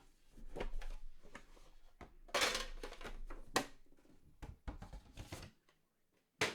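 Packaging and trading cards being handled at a table: crinkling, rustling and sharp clicks as a sealed card box is opened. The loudest rustle comes about two and a half seconds in and a crisp click about a second later, with a quiet gap near the end.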